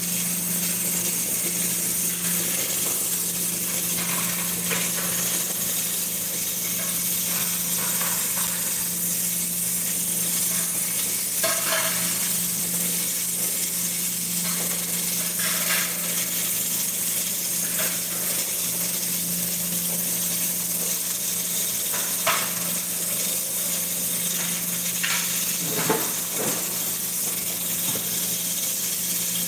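Steady hiss from a gas stove burner heating a steel pot close by, over a low steady hum, with a few scattered clinks of dishes and utensils.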